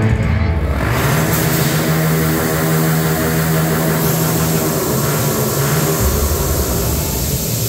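Stage smoke jets blasting with a loud rushing hiss from about a second in, over a low steady drone.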